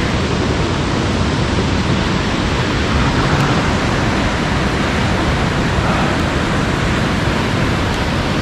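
Steady rushing of river water: an even, unbroken noise.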